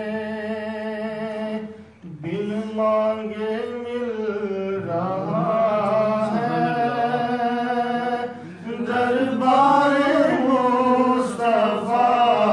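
A man singing a naat, an Urdu devotional poem, solo and unaccompanied, in long held notes that waver, breaking off briefly about two seconds in and again near the end. A steady low drone sits beneath the voice.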